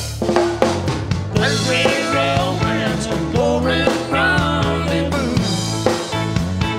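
Live country band playing an instrumental passage: drum kit with a run of hits as it begins, steady bass and guitars underneath, and a wavering melody line on top from the fiddle and guitars.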